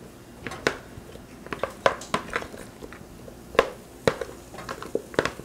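Zucchini spears being set down by hand onto a nonstick stovetop griddle pan, making an irregular scatter of light taps and clicks.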